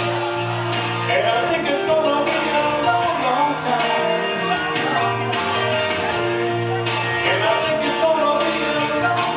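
A man singing a rock song into a handheld microphone over backing music.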